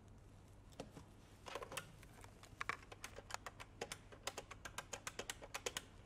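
Quick light clicks of buttons or keys being pressed: a few scattered ones, then a steady run of about four a second over the last three seconds.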